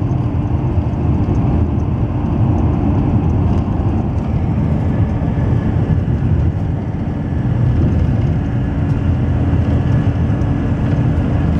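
Car cabin noise while driving on a paved road in a dust storm: a steady low rumble of engine, tyres and wind against the car, with a faint steady hum.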